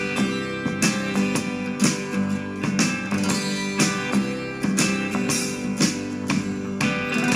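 Country-folk music with strummed acoustic guitar and a steady beat, played on an Eggel Fit 3 Bluetooth speaker in a sound test.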